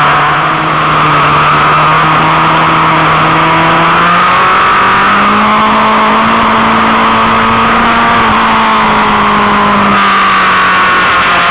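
Motorcycle engine running hard at track speed, heard from a camera mounted on the bike, over heavy wind rush. The engine note climbs about halfway through, holds, then drops back near the end as the bike accelerates and eases through corners.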